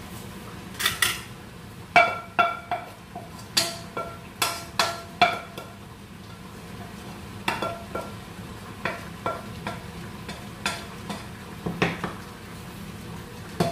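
A spatula knocking and scraping against a tilted frying pan as sauce is emptied from it into a pot: clusters of sharp ringing taps, over a low steady hum.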